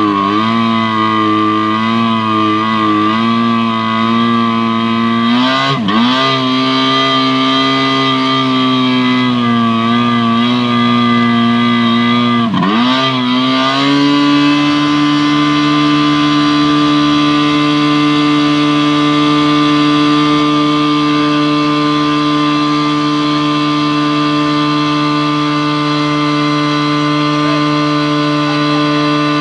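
Tohatsu V50 portable fire pump engine running loud, its speed wavering unevenly and dipping sharply twice, then settling into a steady, even run about halfway through.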